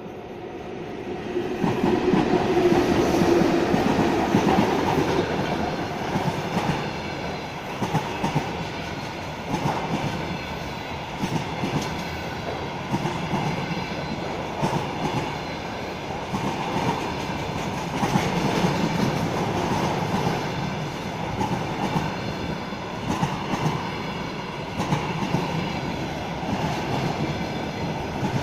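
Freight train rolling past: a steady rumble of the wagons with the clickety-clack of wheels over rail joints, swelling over the first couple of seconds and then holding.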